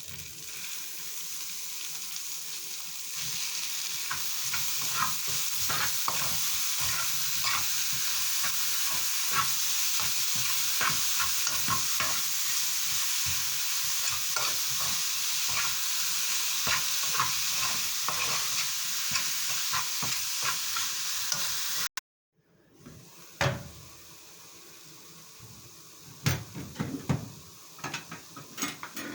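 Food sizzling in a hot pan while a utensil stirs it, with many small clicks and scrapes against the pan; the sizzle grows louder a few seconds in. It stops abruptly about three-quarters of the way through, followed by a few clinks and knocks of cookware.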